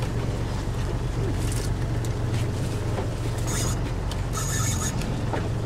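A boat's engine running steadily with a low, even hum, with short high-pitched hissing bursts a few times near the middle.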